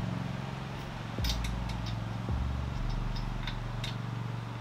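Scattered metallic clicks and clinks of a wrench and socket working a lug nut off the front wheel, over a steady low hum.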